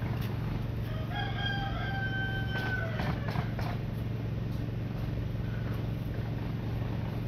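A rooster crows once: a single pitched call of about two seconds, starting about a second in and trailing off in broken notes, over a steady low background rumble.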